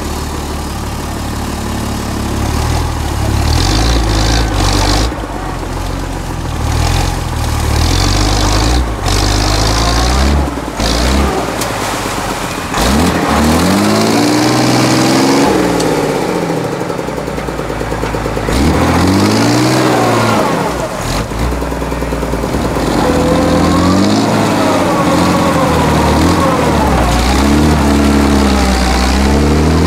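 Diesel engine of a modified 4x4 trial truck working hard in deep mud, revving up and down again and again as the driver pushes through the pit. Heavy low rumble throughout, with the rises and falls in pitch coming more often in the second half.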